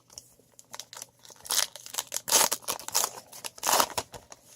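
Baseball trading cards being handled and flipped through: a run of rustling swishes and small clicks, with several louder swishes through the middle.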